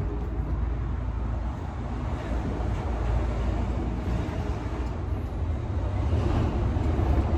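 Steady low background rumble with no distinct events, like road traffic or a large space's ambient noise.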